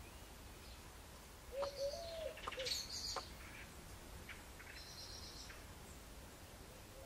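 Birds calling: a low three-note phrase about one and a half seconds in, with short high chirps and a few sharp ticks over it, then another brief burst of high chirps around five seconds in.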